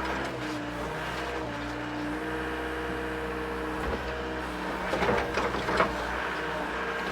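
Mini excavator's diesel engine running under load, with a hydraulic whine that steps to new pitches as the boom and bucket strain against a tree stump. A few short knocks come about five to six seconds in.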